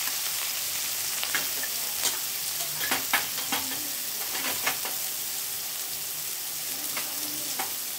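Chopped onion and green chillies frying in hot oil with cumin and mustard seeds in an aluminium kadhai: a steady sizzle, with a few sharp clicks scattered through the first half.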